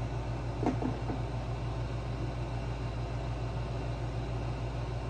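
Generac GP2200i inverter generator's small single-cylinder engine running steadily, with a low, evenly pulsing hum. A short clatter comes a little under a second in.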